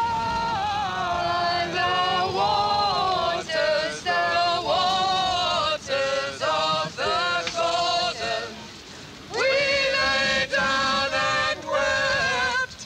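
Voices singing in long held notes, breaking off for about a second roughly two-thirds of the way through.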